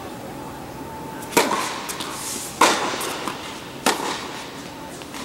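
Tennis ball struck during a rally: three sharp pops of ball on racket or court about a second and a quarter apart, each echoing in a large indoor hall, with a few fainter ticks between.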